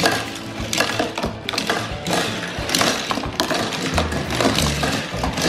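Die-cast toy cars clattering as they roll down a plastic zig-zag track, a quick run of small clicks and rattles.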